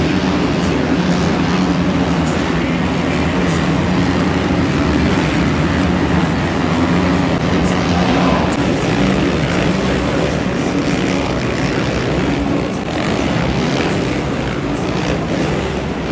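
A pack of 450cc four-stroke supercross motorcycles racing round the track, their engines revving up and down over one another in a continuous drone.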